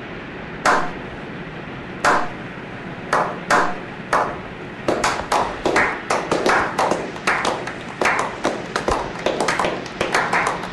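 Slow clap by a small group of men. Single hand claps come a second or more apart at first, then quicken from about five seconds in into faster, overlapping clapping.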